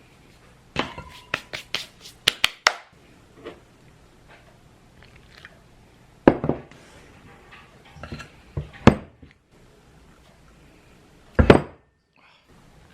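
Kitchen dishes and utensils clinking and knocking: a quick run of sharp clicks in the first few seconds, then several separate knocks spaced a couple of seconds apart.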